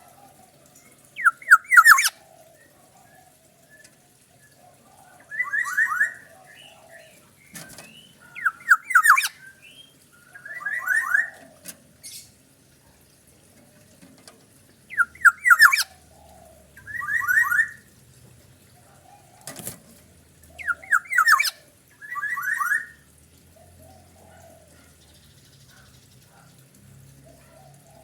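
Kepodang (oriole) calling in short bursts of quick repeated notes every two to three seconds, mixed with harsh rasping calls. There are a few sharp knocks between the calls, and the bird falls quiet for the last several seconds.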